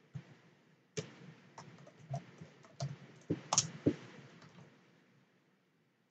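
Computer keyboard being typed on slowly: about ten separate light keystrokes with pauses between them.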